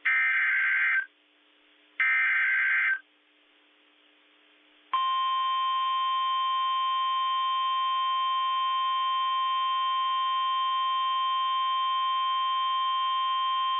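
Emergency Alert System SAME header: two bursts of warbling digital data tones, each about a second long. About two seconds later comes the NOAA Weather Radio 1050 Hz warning alarm, a single steady tone held for about nine seconds. It signals that a warning is about to be broadcast.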